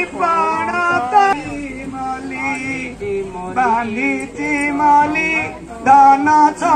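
Singing: a melodic song with long held notes that waver in pitch, sung in phrases of one to two seconds with short breaks between them.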